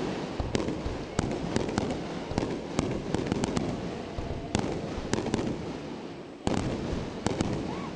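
Aerial fireworks bursting close overhead: a rapid string of sharp bangs over continuous crackling, with heavier bursts about four and a half and six and a half seconds in.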